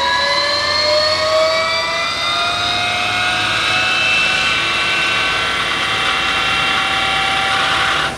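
Electric drive motor of the SCR1 race car whining under load on an eddy-current chassis dyno: an ear-piercing whine of several tones, climbing slowly in pitch as motor speed builds.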